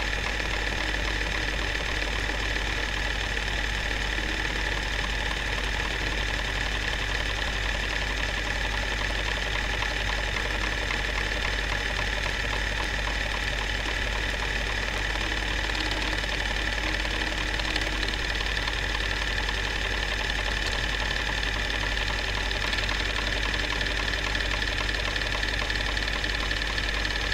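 Film projector running: a steady mechanical clatter with a constant low hum, the soundtrack of a silent 8 mm home movie.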